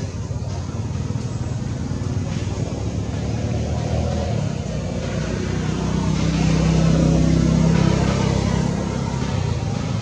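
A motor vehicle's engine running steadily, swelling louder from about six to eight seconds in as it passes, then easing off.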